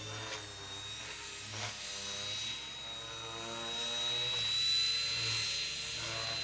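Align T-Rex 450 Pro electric RC helicopter in flight: the high, steady whine of its brushless motor and rotor, rising slightly in pitch and growing louder past the middle as it manoeuvres.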